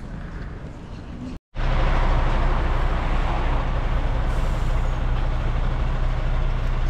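After a sudden break about a second and a half in, a bus engine and road noise run loud and steady, with a constant low hum.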